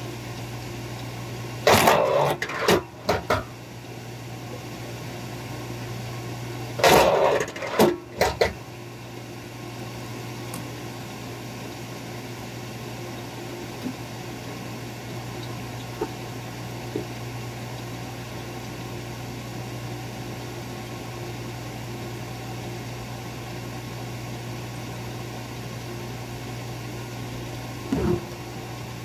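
K-10 log splitter's motor running with a steady hum, broken twice by short loud bursts of the splitter driving through wood, about two and seven seconds in, and a smaller one near the end.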